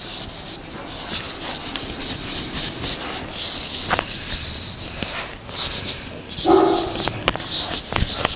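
A chalkboard eraser rubbing chalk off a blackboard in repeated hissing strokes, with a few light knocks. A dog barks briefly about six and a half seconds in.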